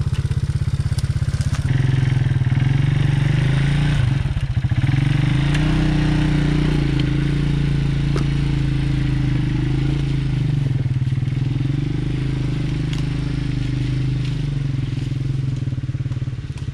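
ATV engine running under load, backing out of a mud hole. The revs rise about two seconds in and again around five seconds, then ease off near eleven seconds, with a few knocks in between.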